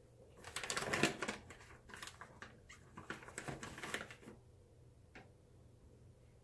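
A black peel-off blackhead mask being pulled off the cheek right beside the microphone. It makes a quick run of sticky crackling and tearing for about four seconds, then one more crackle about five seconds in.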